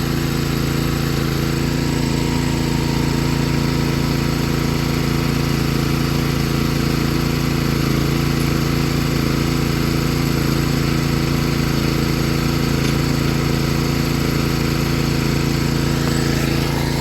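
An engine running steadily at a constant speed, with an even, unchanging hum.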